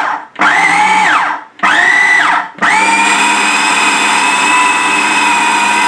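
Kenwood food processor motor whirring as it mixes a thick wholemeal pastry dough. It is pulsed on and off in bursts of about a second, its pitch falling away each time it stops, then runs steadily from about halfway.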